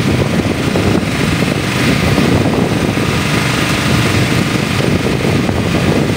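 Fishing boat's engine running with a steady, loud drone.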